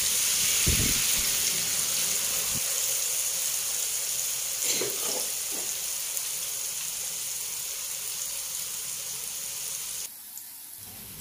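Peanut peyek batter frying in hot oil in a wok, a steady sizzling hiss with a few soft knocks midway. The sizzle drops suddenly to a much quieter level about ten seconds in.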